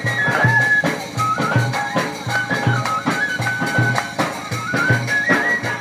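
Band-party dance music: a drum beat about twice a second under a high melody line that steps up and down.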